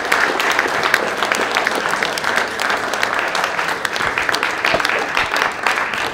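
Audience applauding, with many hands clapping steadily at the end of a talk.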